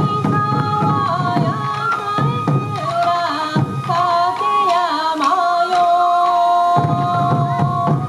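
Sansa odori festival music: taiko drums beating under a high, wavering held melody with sliding ornaments. The drums thin out for a few seconds past the middle while the melody carries on.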